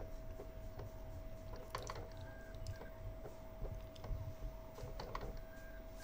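Original PS4 Blu-ray drive with a disc in, trying to read it: a steady faint hum with several sharp clicks, in clusters about two seconds and five seconds in. The clicks are the laser or the disc moving up and down to realign the laser, the sign of a faulty laser.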